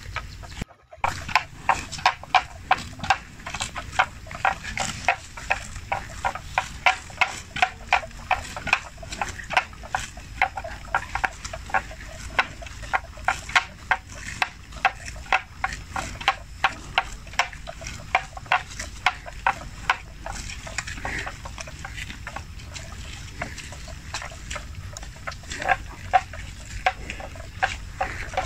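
Water buffalo tearing off grass as they graze, a steady run of crisp rips about two to three a second. The rips thin out after about twenty seconds and pick up again near the end.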